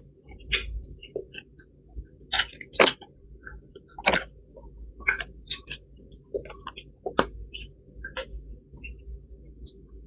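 Close-miked eating: irregular crunches, smacks and mouth clicks of chewing, with food being picked up and handled by hand.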